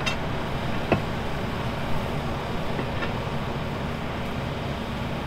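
Bobcat compact track loader's diesel engine idling steadily, with a sharp knock about a second in and fainter knocks near two and three seconds.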